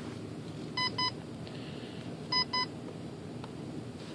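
Electric glider's speed controller beeping through its brushless motor in programming mode: two pairs of short double beeps about a second and a half apart, as it steps through its settings with the throttle held at full, here to switch on the motor brake.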